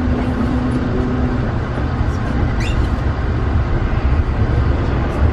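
Subway train heard from inside the car, a steady low rumble as it pulls away from the platform. There is a steady hum for the first second or so and a brief rising squeal about halfway through.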